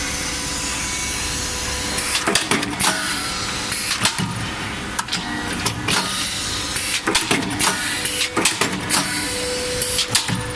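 CNC band-steel punching and shearing line running: a steady machine hum broken by irregular sharp clanks and clicks and short hissing bursts.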